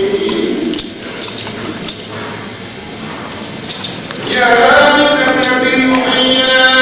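Church chanting: a held sung note ends, a quieter pause follows with light metallic jingling, and a voice takes up the chant again about four seconds in.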